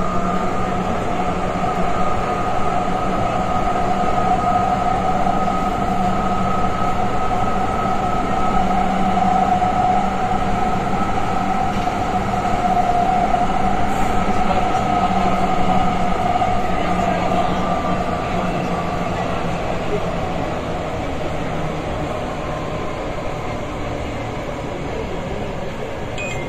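Athens Metro Line 1 electric train running through a tunnel, heard from inside the carriage: a steady rumble of wheels on the rails with two held droning tones. The sound grows a little quieter over the last several seconds, as the higher tone fades away.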